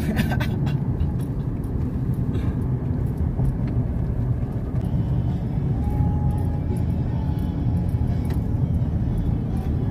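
Steady low rumble of a car's engine and tyres heard from inside the cabin while driving along a highway, with a few light clicks near the start.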